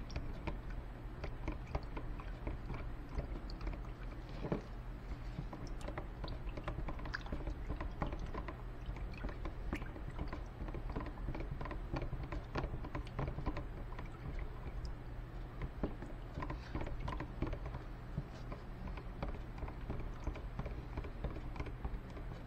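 Wooden paint stick stirring thinned varnish in a plastic tub, making a continuous run of light clicks, taps and scrapes against the tub's sides. A steady low hum runs underneath.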